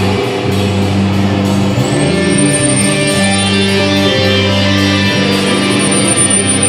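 Improvised experimental band music: low sustained bass notes under guitar and electronic layers. A high whistling electronic tone enters about two seconds in and wavers in pitch.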